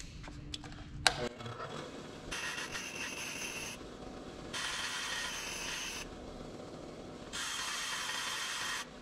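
Craftsman 8-inch variable-speed bench grinder switched on with a click about a second in, then a metal fishing-spoon blank pressed to it three times, each a rasping hiss of metal being ground lasting about a second and a half. The metal heats up as it is ground.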